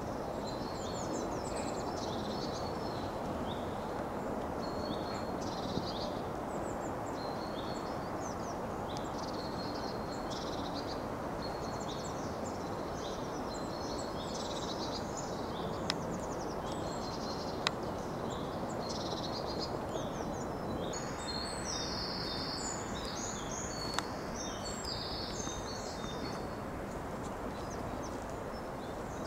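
Woodland birds singing and calling, many short high chirps, busier in the second half, over a steady hiss of a shallow stream flowing. A few faint single clicks.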